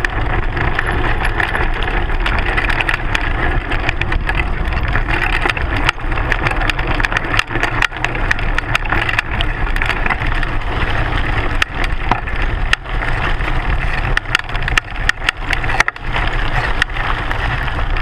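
Mountain bike tyre rolling fast over a stony dirt and gravel trail, heard right by the front wheel: a steady loud rumble and crunch of gravel, packed with sharp clicks and rattles from stones being struck.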